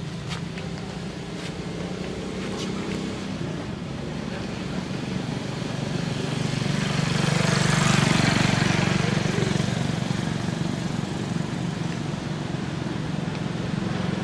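A motor vehicle passing, its engine noise growing louder to a peak about eight seconds in and then fading, over a steady low hum.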